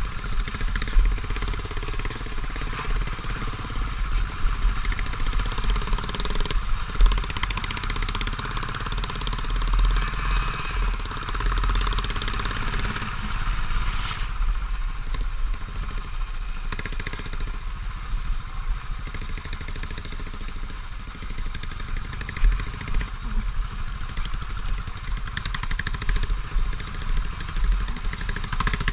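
Royal Enfield motorcycle running steadily on a rough dirt track, heard from an onboard camera, with a few sharp knocks along the way.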